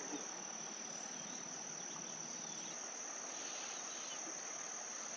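Insect chorus, a steady high-pitched drone; a fainter, higher insect note drops out about halfway through.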